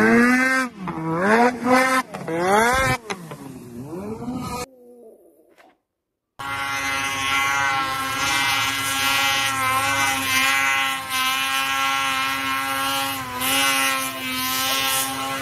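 Snowmobile engines revving, the pitch swinging up and down several times in the first few seconds. After a short break of near silence, a snowmobile engine runs at a steady high pitch with small dips.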